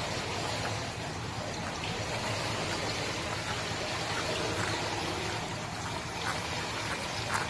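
Steady rushing and trickling of pool water as a small dog paddles, with a few light splashes near the end.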